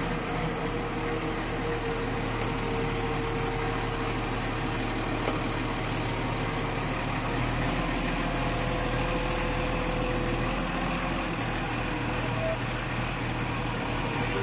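A vehicle engine running steadily, a low even hum with a faint steady tone over it.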